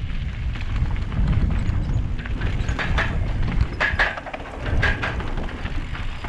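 Wind buffeting the microphone of a mountain bike descending a trail, with a few sharp clatters about three, four and five seconds in as the bike rattles over bumps.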